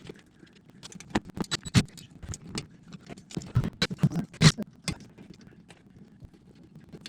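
Irregular clicks, taps and light rattles of small hardware and tools being handled while a power cord is fitted to a dishwasher. Two sharper knocks come about two and four and a half seconds in, and the sounds thin out near the end.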